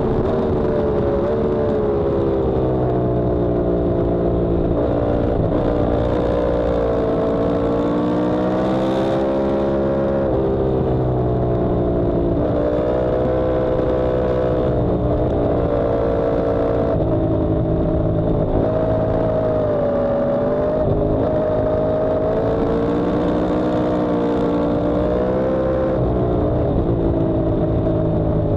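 Yamaha R1M's crossplane inline-four engine heard onboard at speed on a race track, its pitch repeatedly rising under acceleration, breaking briefly at gear changes and falling off again into corners.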